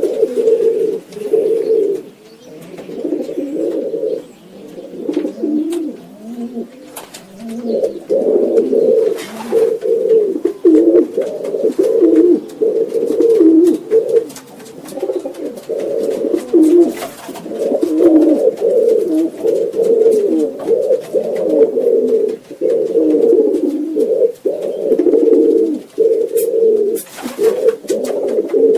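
Several pigeons cooing, their low coos overlapping almost without pause.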